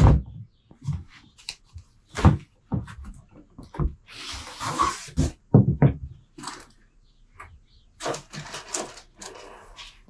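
Cardboard shipping box and packaging being handled while unpacking a bicycle: a sharp click at the start, scattered knocks and thuds, and cardboard scraping and rustling about four seconds in and again near the end.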